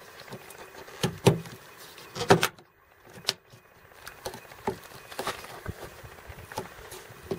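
Hands working a plastic window belt trim strip onto a Honda CR-V door: scattered small clicks and knocks of plastic against the door, the louder ones about a second in and just after two seconds.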